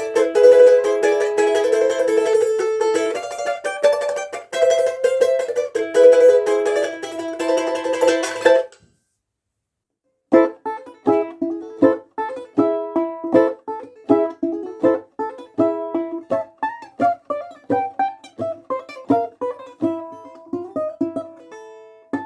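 A budget balalaika, about $50, playing a piece: fast tremolo strumming of a melody that cuts off suddenly about eight and a half seconds in. After a short silence, a passage of separately plucked notes follows in a steady rhythm, dying away near the end.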